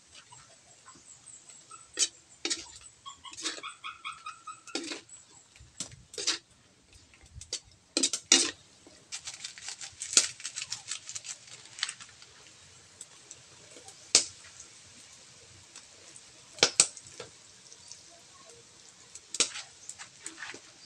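Metal spatula scraping and knocking against a metal wok as chicken pieces are stirred: irregular clinks and scrapes, several of them sharp and loud. A short pitched animal call sounds a few seconds in.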